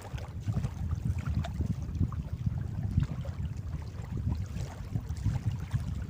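Wind buffeting the microphone in an uneven low rumble, with water noise around a small fishing boat at sea.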